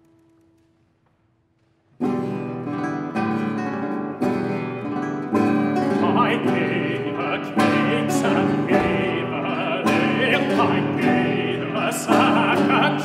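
Classical guitar: after a near-silent pause, it starts about two seconds in and plays a brisk, loud introduction of sharply strummed chords and quick plucked notes.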